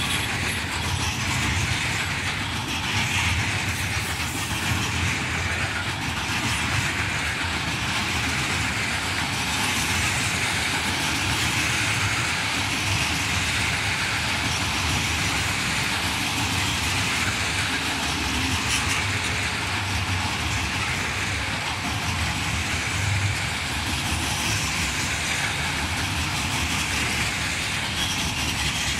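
Freight train hauled by an ET22 electric locomotive running past, its wagons' wheels making a steady, loud noise on the rails throughout.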